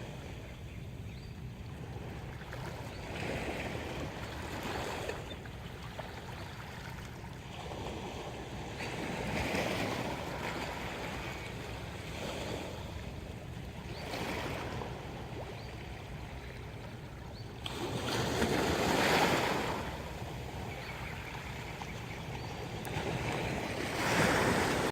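Sea waves breaking and washing up a beach, a surge of surf every few seconds over a steady low rumble, with the largest wash about three-quarters of the way through.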